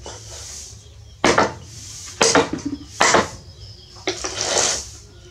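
Kitchen knife chopping raw pork on a wooden tree-stump chopping block: four sharp blade-on-wood chops, about a second apart.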